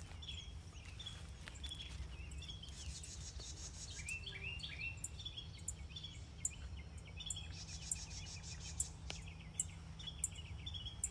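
Small birds chirping over and over in short repeated calls, with scattered faint high ticks over a steady low background rumble.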